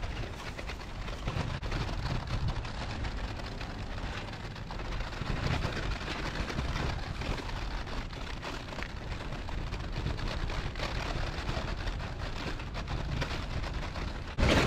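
A plastic shopping bag crinkling and rustling close to the microphone as it is carried at walking pace, a dense patter of small crackles over a low rumble of wind and traffic.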